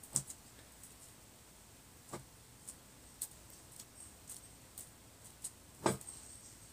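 Sparse light taps and clicks of slime-making containers being handled and set down on a table, with a louder knock just before six seconds in.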